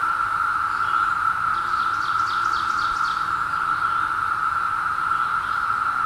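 Chorus of Brood II periodical cicadas (Magicicada): a loud, steady, unbroken drone of many males calling together. About two seconds in, a brief run of quick, higher chirps sounds over it.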